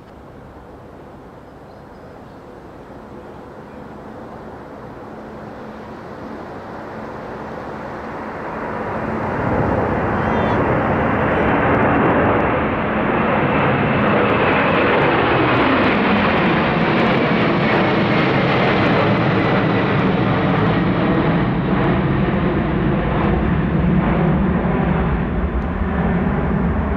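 Airliner engines growing steadily louder for about ten seconds, then staying loud as the aircraft passes close, with a high whine that slowly falls in pitch as it goes by.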